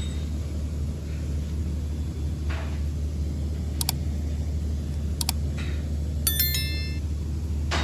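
A steady low hum with a few soft knocks, two sharp clicks in the middle and a brief metallic ringing clink near the end, like tools or small metal parts being handled.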